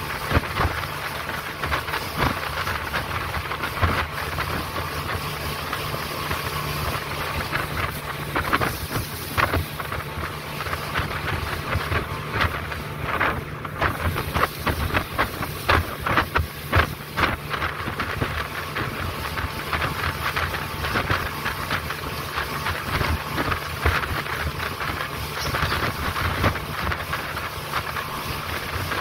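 Speedboat running fast on a river: a steady engine drone under rushing water and wind noise on the microphone, with irregular slaps and knocks as the hull meets the chop.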